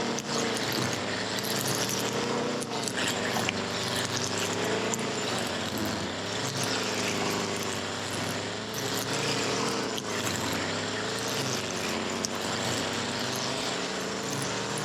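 Small gas engine of lawn equipment running steadily, its pitch wavering slightly up and down.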